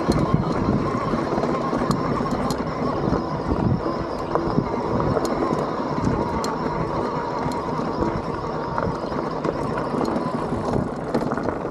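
Electric mountain bike riding over loose boulders on a rocky trail: the frame and suspension rattle and the tyres knock on rock, with many short sharp knocks over a steady noisy rumble.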